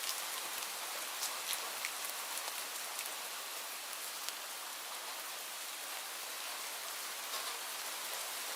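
Light rain falling steadily: an even hiss with scattered sharper taps of individual drops hitting a surface.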